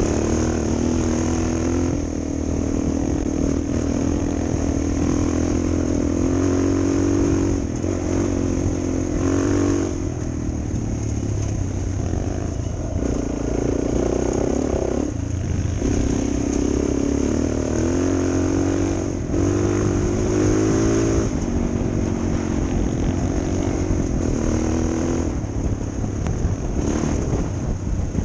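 Suzuki DR 400 dual-sport motorcycle's single-cylinder four-stroke engine running under way, its pitch rising and dropping every few seconds with throttle and gear changes. Wind rushes over the microphone throughout.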